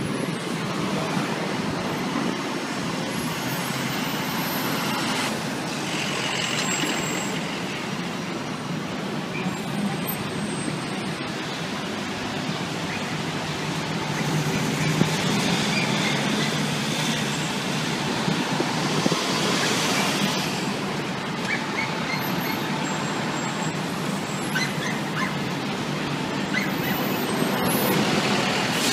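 City street traffic: a steady low hum of idling and passing trucks, vans and cars, with a few brief louder swells of hiss as heavier vehicles go by.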